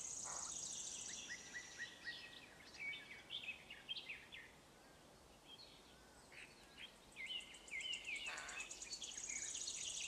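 Faint, high, squeaky chirping from Eurasian jay nestlings begging at the nest as the adults feed them, coming in two spells with a lull in the middle. A fast, high, pulsing trill sounds at the start and again near the end.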